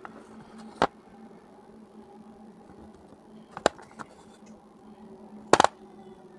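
Sharp crunches of a hard, brittle clay chunk being bitten: three crunches, the last a quick double crunch about five and a half seconds in and the loudest. A faint steady low hum runs underneath.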